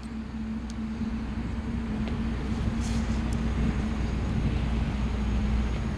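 Steady outdoor background rumble with a constant low hum, and a couple of faint clicks about three seconds in.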